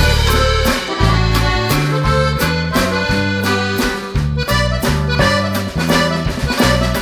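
Instrumental background music with a steady beat of about two strokes a second over a bass line.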